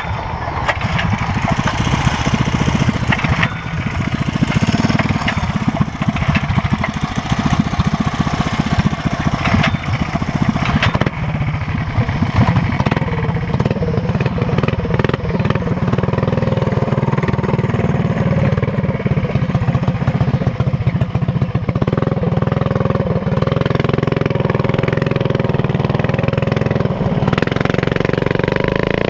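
Minibike's Honda GX160 single-cylinder four-stroke engine running under load while riding, with a few sharp knocks from bumps in the first dozen seconds. After that the engine note settles into a steady drone, rising slightly in pitch about halfway through.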